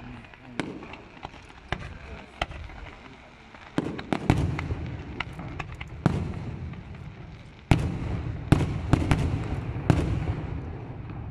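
Fireworks display: aerial shells bursting one after another, a run of sharp bangs that grows denser and louder from about four seconds in, each followed by a rumbling echo, easing off near the end.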